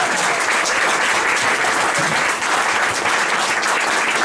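Audience applauding: dense, steady clapping at the end of a song.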